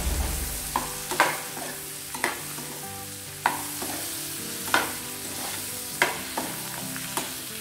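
Steel spoon stirring chopped tomatoes and cashews frying in oil in a metal kadai: a steady sizzle, with the spoon clinking against the pan about once a second.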